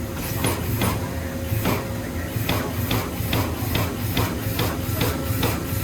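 Amada Vipros 255 CNC turret punch press punching sheet metal: a rapid series of sharp hits, a few spaced apart at first, then about four a second from about halfway, over a steady low machine hum.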